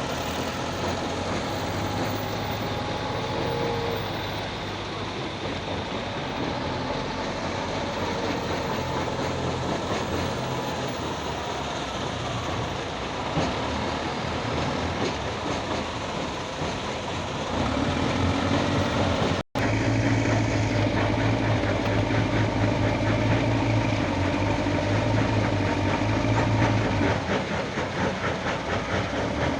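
Diesel engine of a Hitachi excavator running with a steady rhythmic clatter; about two-thirds of the way in it grows louder and deeper, and a split-second gap breaks the sound just after.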